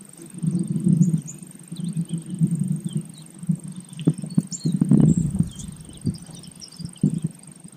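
Outdoor insect drone, a steady high thin tone, with birds chirping. Under them are low rumbling bursts, and a few sharp clicks come about four to five seconds in as a fishing rod is recast.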